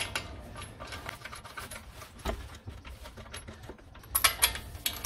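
Wheel nuts being started by hand onto the wheel studs: faint metal clicks and scrapes, with a short run of sharper clinks about four seconds in.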